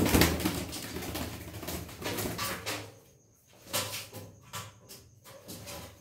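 A budgerigar squawking harshly while held in a hand. A long loud burst starts suddenly, then shorter squawks follow from about three and a half seconds in.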